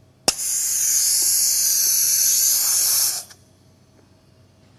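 A click, then a loud, steady, high-pitched hiss of oxygen rushing through a small-volume nebulizer turned up to a high flow rate, about 20 litres per minute. The hiss cuts off suddenly after about three seconds.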